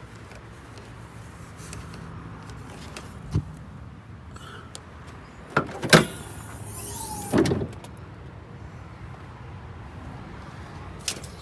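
Power window running for about a second and a half, starting after a sharp click and stopping with a thud, over a steady low hum; a separate thump and a few clicks come earlier.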